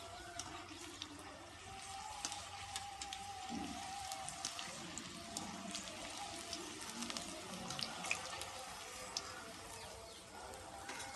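Stuffed okra deep-frying in hot oil in a steel kadai: a steady sizzle with many small pops and crackles scattered through it.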